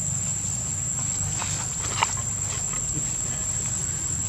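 Dry leaf litter crackling and rustling as a long-tailed macaque moves and forages, with a cluster of crackles in the middle and one sharp snap about two seconds in. Under it run a steady low rumble and a constant high thin whine.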